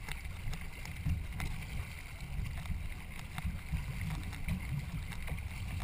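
Wind rumbling on the microphone over water sounds from a racing canoe being paddled, with faint irregular clicks and splashes.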